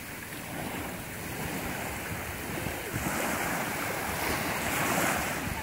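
Small sea waves lapping and washing onto the shore, one wash swelling louder about five seconds in, with wind rumbling on the microphone.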